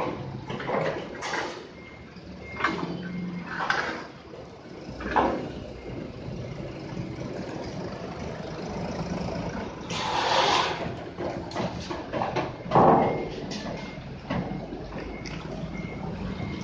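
Toyota forklift engine running while its steel forks scrape and knock against a heavy steel plate on concrete, pushing under it and lifting it. There is a longer scrape about ten seconds in and a sharp clank, the loudest sound, about three seconds later.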